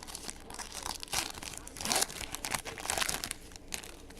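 Trading-card packs and cards crinkling and rustling as they are handled and opened, with several louder crackles about a second, two seconds and three seconds in.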